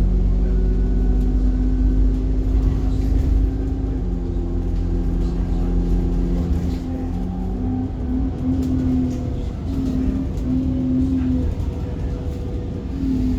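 Alexander Dennis Enviro bus under way: a heavy low engine rumble with steady drivetrain whine tones that step in pitch a couple of times, pulse on and off in the second half, and slide down near the end as the bus slows.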